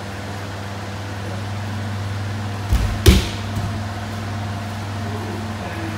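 A judoka thrown onto the tatami: a dull thud about two and a half seconds in, then a sharp slap, the breakfall, a moment later. A steady low hum runs underneath.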